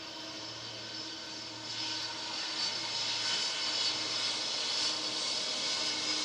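Jet engines of a Boeing 747-400 on its landing roll: a rushing roar with a steady whine running through it, growing louder about two seconds in.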